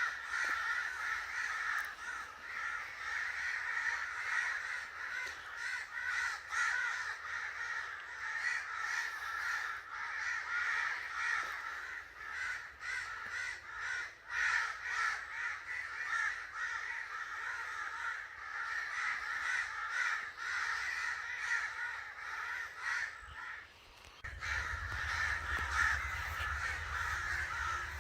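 A group of crows cawing continuously, many harsh calls overlapping with no pause. There is a brief lull near the end, after which a low rumble joins the calling.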